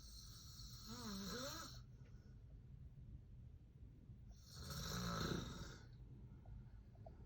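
A man snoring in his sleep: two long snores a few seconds apart, the first with a wavering pitch, the second louder.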